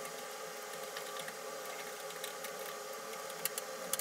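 Steady mechanical hum with several held tones. Over it come a few light metallic clicks, mostly near the end, as hand tools work on a brass solenoid valve that is being reassembled.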